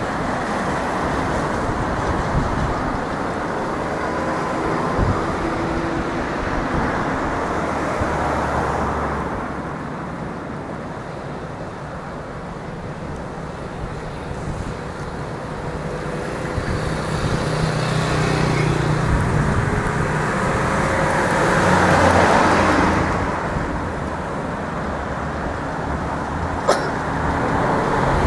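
Road traffic passing along a waterfront road: a steady wash of car noise that swells and fades as vehicles go by, loudest as one passes about three quarters of the way through, with a single short click near the end.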